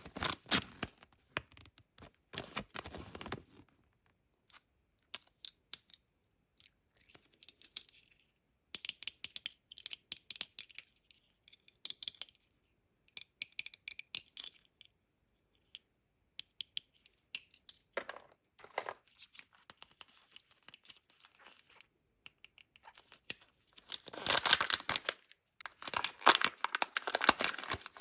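Kinder Joy egg wrappers and packets being torn open and crinkled by hand. Loud bursts of tearing and crinkling come near the start and again near the end, with quieter small crinkles and clicks in between.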